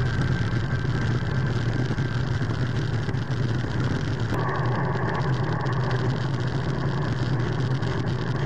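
Steady road and wind noise from a road bike rolling along asphalt, heard through a handlebar camera's microphone, with a car going by in the other lane about four seconds in.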